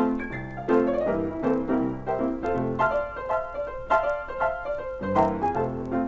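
Piano music, a tune with a steady beat and bass notes under it.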